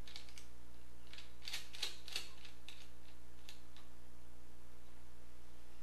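A scatter of light clicks and taps from fingers handling the fused wire and connector at a deep-cycle battery's positive terminal, over a steady low hum. The clicks thin out about halfway through.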